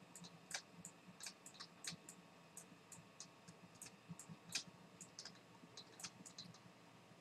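Faint, irregular clicks and taps, several a second, from a stylus on a pen tablet as words are handwritten.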